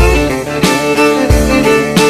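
Background music: a song with fiddle or guitar over a steady low beat.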